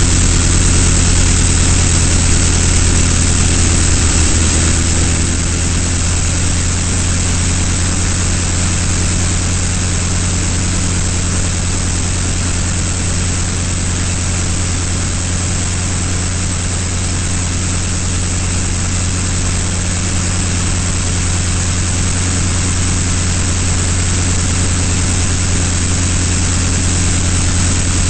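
Avro 504K biplane's rotary engine running in flight, a loud, steady drone. It dips slightly in pitch and loudness about four to five seconds in, then holds steady.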